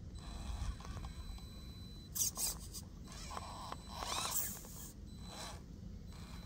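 A small electric RC rock crawler, an FMS FCX24 Power Wagon, whines in three short bursts as it creeps over rock, with tyres scraping. The longest burst, about four seconds in, rises and falls in pitch. A steady low rumble runs underneath.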